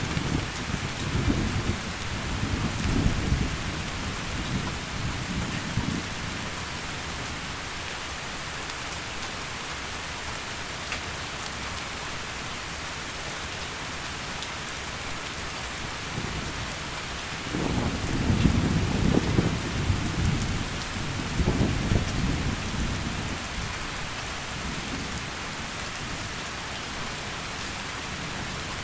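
Heavy rain falling steadily, with two rolls of thunder: one rumbling at the start and dying away by about six seconds in, and another building up about seventeen seconds in and rolling for several seconds.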